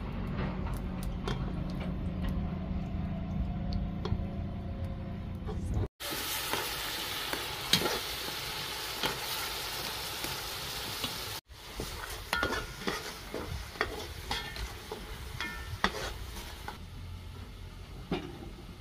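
Chopped tomatoes frying in hot oil in an aluminium pot: an even hissing sizzle begins about six seconds in, then a metal skimmer ladle scrapes and clicks against the pot as they are stirred. Before the sizzle, a low steady rumble with scattered crackles.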